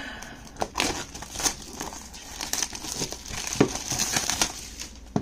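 Clear plastic shrink-wrap being torn and pulled off a cardboard box, a steady run of irregular crinkles and crackles.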